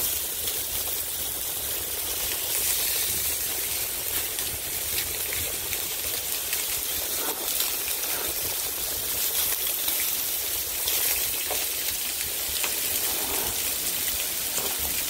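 Diced bacon sizzling steadily in its own fat on an electric griddle, with scattered small pops.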